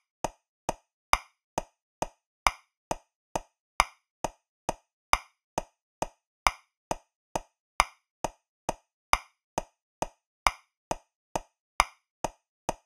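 Metronome clicking steadily at 135 beats per minute in 3/4 time, in short wood-block-like clicks, a little over two a second. The first click of each group of three is accented, louder than the other two.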